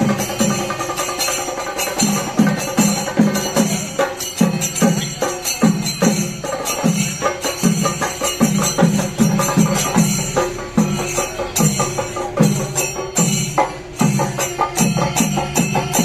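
Live festival percussion music: drums beating a steady, fast rhythm of about three strokes a second, with bright metallic strikes over them and a sustained tone in the middle range.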